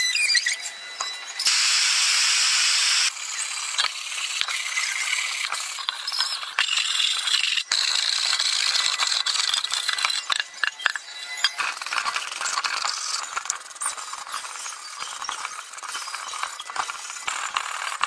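Steel scraping tools rasping and squeaking against rusted steel burner parts of an old cassette stove as the rust is scraped off. The scratching is high-pitched and continuous, broken by many small sharp clicks, with a steadier, louder rasp for a second or so near the start.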